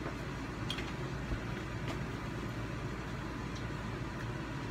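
A steady low background hum with a few faint short clicks.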